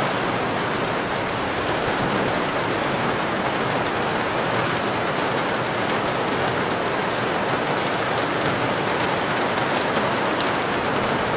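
Steady heavy rain falling, an even hiss with scattered drop ticks.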